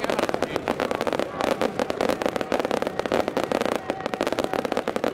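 Aerial display fireworks going off in quick succession: a dense, near-continuous rattle of crackling and popping bursts.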